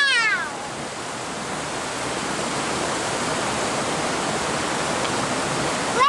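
Rushing water of a rocky rainforest cascade, a steady noise throughout. At the very start a small child's high squeal glides down in pitch, and another squeal begins right at the end.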